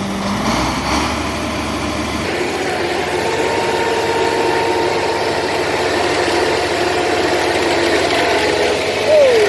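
Diesel engines of Komatsu D70LE crawler bulldozers running steadily, with a short drop in pitch near the end.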